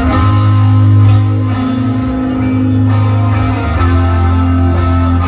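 Live rock band playing a slow, heavy passage: electric guitars and bass hold long, low chords that change every second or two, with a cymbal crash about every two seconds, three times in all.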